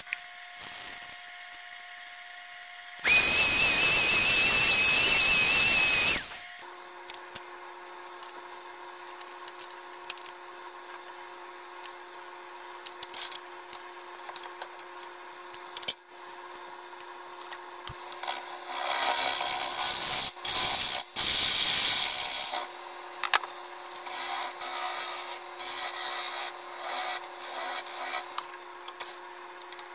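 Wood lathe running with a steady motor hum while the spinning wooden blank is worked by hand, first with sandpaper and then with a turning tool. A loud, even hiss lasts about three seconds near the start, and a louder stretch of tool cutting comes about two-thirds of the way through.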